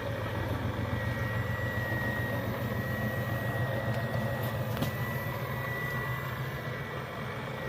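Radio-controlled construction model's electric drive running steadily: a continuous motor hum with a thin, constant high-pitched whine, and a few faint clicks.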